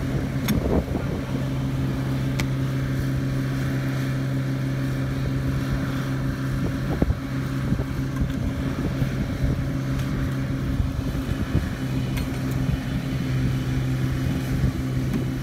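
1951 Dodge 3.5-ton log truck's engine idling steadily with a low, even hum, with a few light knocks as logs are rolled with cant hooks.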